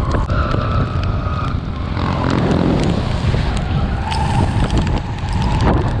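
ATV engine running under throttle with wind on the microphone, as the machine ploughs into muddy pond water and water washes around it.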